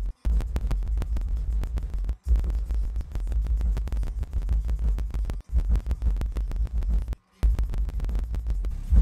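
Kicker CompVX 12 subwoofer playing a bass-heavy song at high power inside a car during a musical RMS test. The deep bass is chopped into a rapid stutter with a few brief dropouts, as in fast-forwarded footage.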